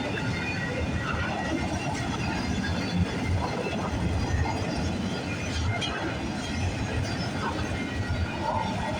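Freight cars of a mixed freight train rolling past: a steady rumble of steel wheels on rail with irregular clatter and a thin, faint high squeal from the wheels.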